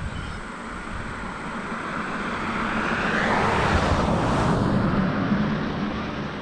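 A vehicle passing by on the road, its noise swelling to a peak a few seconds in, dropping in pitch as it goes by, then fading.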